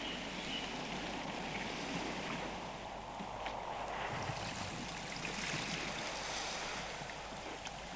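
Small waves washing gently onto a sandy shore, a steady, even surf noise.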